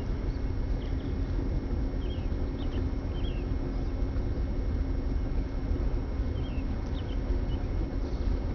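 A large lake freighter's engine making a steady low drone and hum as the ship passes slowly. A bird chirps briefly a few times over it.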